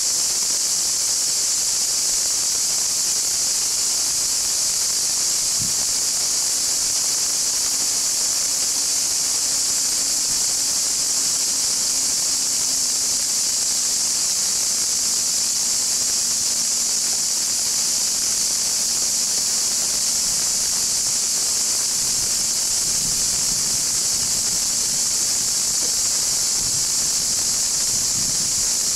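Loud, steady, high-pitched cicada chorus in the trees, with a faint low drone from the approaching diesel railcar.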